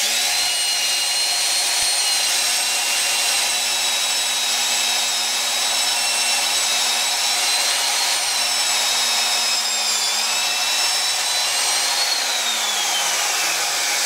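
Vintage Wolf 240-volt electric drill running and boring into a block of wood, a loud steady motor whine with a hiss over it. The pitch dips about ten seconds in and sinks over the last two seconds as the motor slows.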